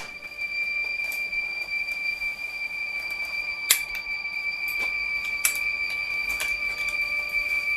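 Sharp metallic clicks of a Volcanic lever-action repeating pistol being handled and worked, the two loudest about three and a half and five and a half seconds in, over a steady high-pitched tone.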